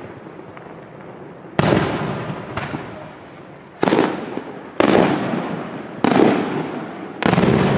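Aerial firework shells bursting in the night sky. Five loud bangs and a smaller one come from about a second and a half in, roughly a second apart, each trailing off in a long rolling echo.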